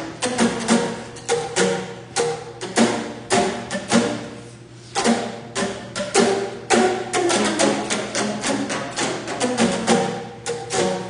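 Percussive music played live: sharp clacking strikes and short pitched notes in an uneven rhythm, dropping back briefly about four seconds in.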